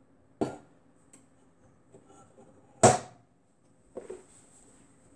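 Kitchenware being handled and set down: a light knock about half a second in, a sharp, loud clack near three seconds and a softer knock about a second later.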